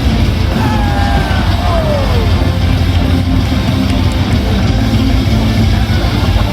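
Loud rock music with a heavy, steady bass; a sliding tone falls in pitch about a second in.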